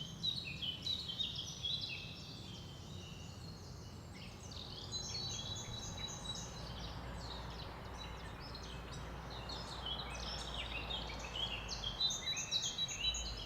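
Forest ambience: several birds chirping and trilling together in many short, overlapping phrases over a faint steady background hiss and low rumble.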